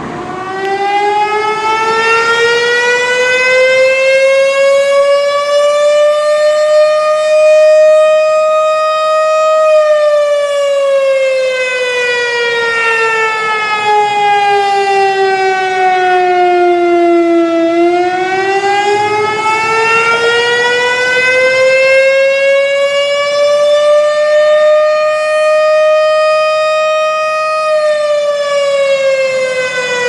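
Firehouse siren alerting for a fire call, sounding a slow wail. It rises in pitch, holds, falls, then rises and falls a second time.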